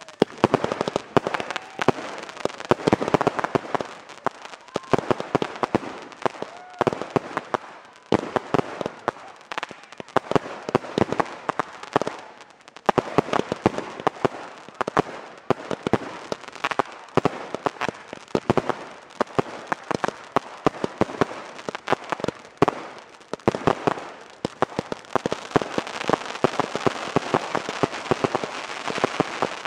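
Consumer fireworks: a cake on the ground firing shot after shot, with bursts popping and crackling overhead in dense runs and short lulls. A few short whistles come through now and then.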